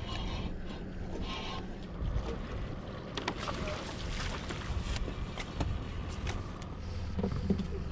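Wind and water lapping against a fishing boat, with a fish splashing and a few sharp knocks in the middle as it is scooped up in a landing net and swung aboard.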